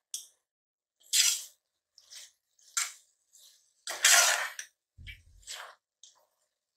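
A spatula scraping and knocking against the inside of a pressure cooker while masala with mint and coriander leaves is stirred and fried: a run of short, irregular scrapes, the loudest and longest about four seconds in.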